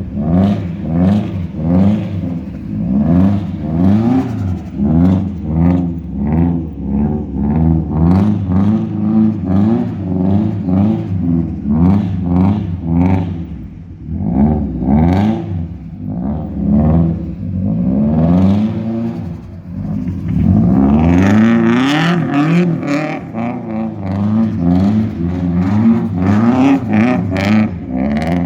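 Turbocharged Subaru Impreza flat-four engine with a loud exhaust, revved hard over and over, its pitch rising and falling about once a second. About two-thirds of the way through there is a longer, louder pull.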